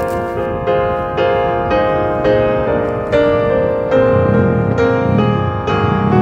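Piano music: single notes struck about twice a second in a slow, gentle melody.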